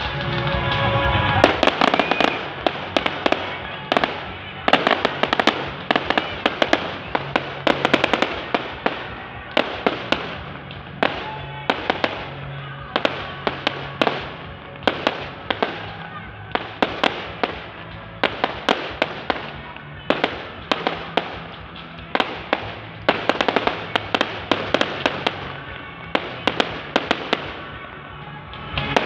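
Fireworks display: a rapid, irregular string of sharp bangs and crackles, several a second, with music playing underneath.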